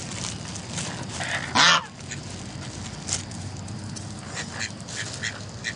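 A goose gives one loud, short honk about a second and a half in, among short calls and clucks from the chickens crowding round for bread.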